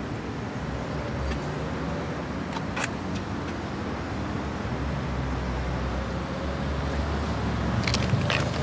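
Steady low rumble of motor vehicles, with a few faint clicks a little under three seconds in and a couple near the end.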